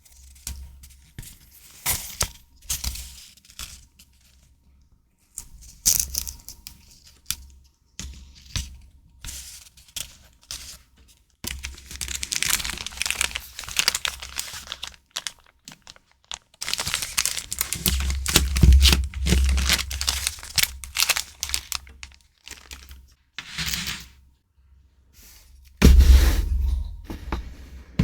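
Paper and plastic stationery packaging rustling, crinkling and tearing in a run of short irregular bursts, with longer stretches of handling in the middle and second half.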